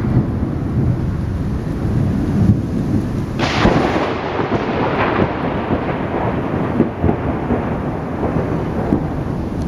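Thunder rumbling over steady rain, with a sudden sharper burst about three and a half seconds in that fades over a second or so.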